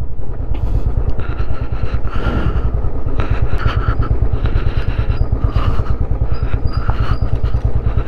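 Motorcycle engine running at low speed while riding, with a steady rapid low beat.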